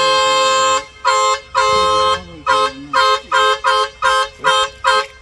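Truck horn honking at a wild elephant blocking the road: a long blast, two shorter ones, then a quick run of short toots about three a second, stopping just before the end.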